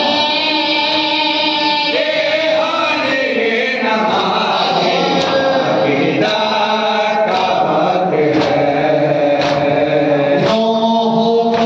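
Men's voices chanting a noha, a Shia lament, together in long drawn-out lines. From about five seconds in, sharp beats of matam chest-beating come about once a second in time with the chant.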